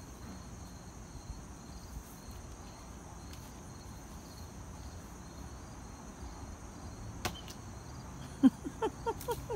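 Steady high chirring of insects over faint outdoor background. A single sharp click comes about seven seconds in. Near the end a rapid run of short calls starts, each falling in pitch, about four or five a second.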